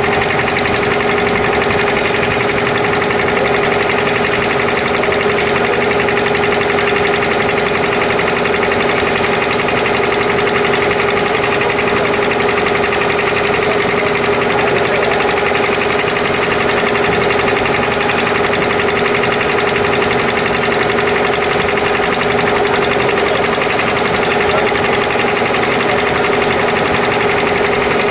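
Boat engine running steadily at constant speed, an even mechanical drone with one steady tone through it.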